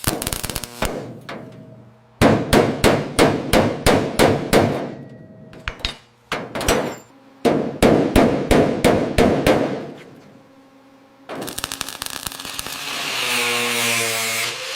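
Hammer blows on metal, about four a second, in two quick runs of a few seconds each, each blow clanging. Near the end a steady hiss takes over.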